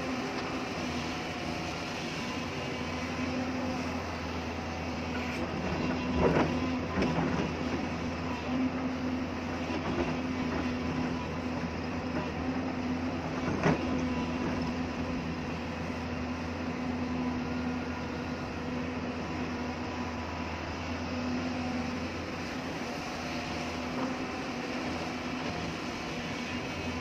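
Hyundai excavator's diesel engine running at a steady speed, with two sharp metallic clanks, one about six seconds in and one about halfway through, as the machine works hard rock.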